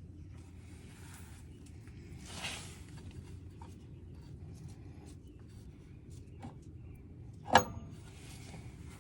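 Small clicks and handling noises of parts being worked by hand, with a brushing swish early on and one sharp clink near the end, over a steady low hum.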